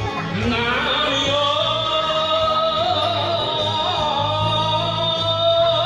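A man singing an enka song into a karaoke microphone over a recorded backing track, with long held notes.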